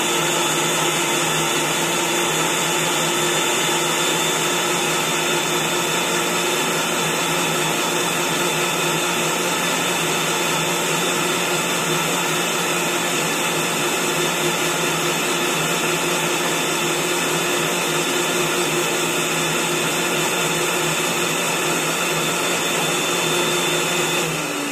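Countertop blender motor running steadily at full speed, blending peeled apple with a little water into juice. Right at the end it is switched off at the knob and the motor's pitch falls away as it winds down.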